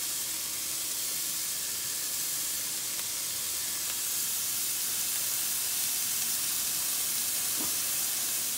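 Sausage pieces sizzling steadily in a nonstick frying pan over medium heat: an even, continuous hiss.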